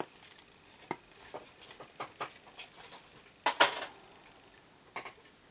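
Scattered light taps and clicks of small craft items being handled and set down on a wooden worktable, with one louder clatter about three and a half seconds in.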